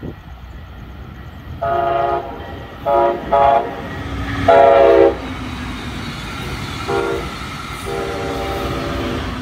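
Brightline passenger train's Siemens Charger locomotive sounding its chime horn in a series of six blasts: two short ones in quick succession, the loudest about halfway through, and the last the longest. The passing train rumbles underneath.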